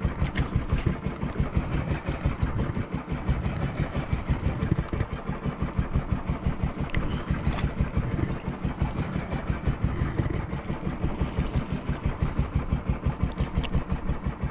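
Engine of a small outrigger fishing boat running steadily, a fast, even putter that does not change. A few faint clicks sound over it.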